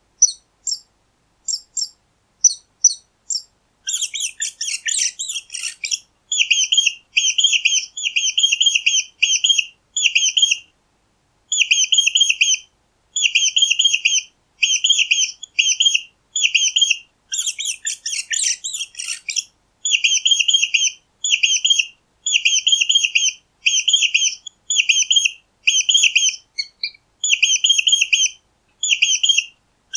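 Mice squeaking: high-pitched squeaks in quick little trains, a few scattered ones at first, then cluster after cluster with short gaps. Two stretches are denser and more jumbled, about four seconds in and again past the middle.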